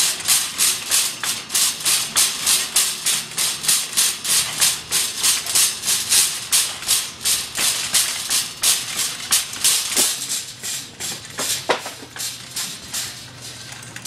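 Wire shopping cart rattling as it is pushed along, a rhythmic shaking rattle about three or four strokes a second. It eases off after about ten seconds, with a couple of sharper clicks.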